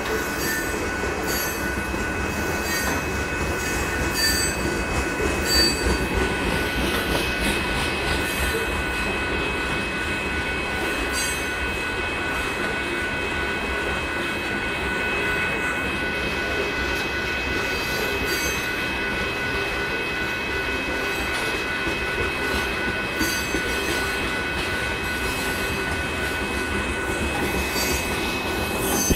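Loaded rock train's hopper cars rolling steadily past: a continuous rumble of steel wheels on rail with a steady high wheel squeal, and a faint ring repeating about every two-thirds of a second.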